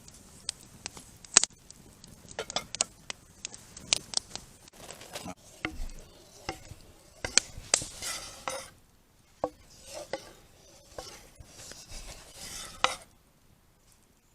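Cooking utensils and cookware clinking and knocking irregularly, with short scraping and stirring noises in the second half. The clicks are sharp and scattered, the loudest about a second and a half in.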